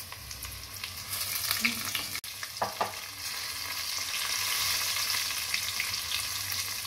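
Batter-coated sweet corn kernels deep-frying in hot oil in a kadai: a steady sizzle with many small crackling pops, the oil kept on a low flame. The sound breaks off for an instant about two seconds in.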